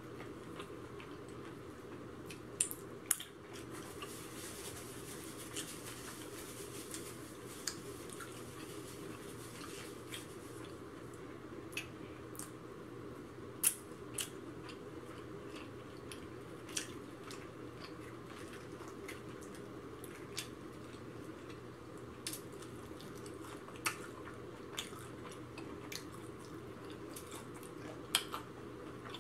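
Close-up eating sounds: chewing, mouth smacks and short crisp clicks as fried chicken and corn on the cob are picked apart and eaten. The clicks come at irregular moments over a steady low hum.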